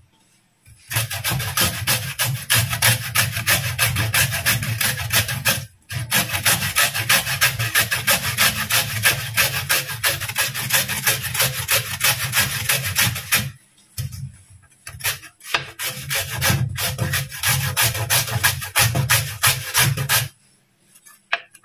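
A carrot being grated on a flat stainless-steel grater resting on a wooden cutting board. It makes quick, rhythmic rasping strokes, about three a second, with a few short pauses between runs.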